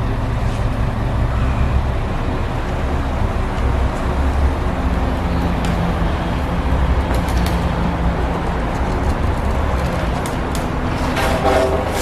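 A crane's engine running steadily, with a low, even hum and no change in pitch.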